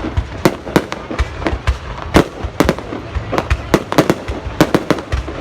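Fireworks going off: a rapid, irregular string of sharp bangs, several a second, over a continuous low rumble.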